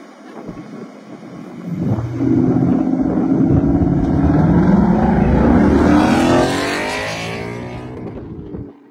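Two Ford Mustangs' engines revving hard at the start line, then launching and accelerating away at full throttle, the engine note rising in pitch as it fades with distance. The sound cuts off sharply near the end.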